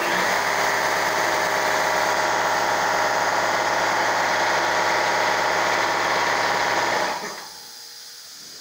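Power ratchet running steadily, driving bolts down into the cylinder head of an engine under rebuild. It cuts off about seven seconds in.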